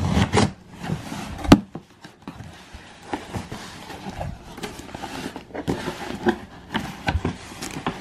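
A cardboard shipping box being opened by hand: a plastic box cutter slitting the packing tape, then the cardboard flaps pulled open and handled, with scattered scrapes and taps. A single sharp snap about one and a half seconds in is the loudest sound.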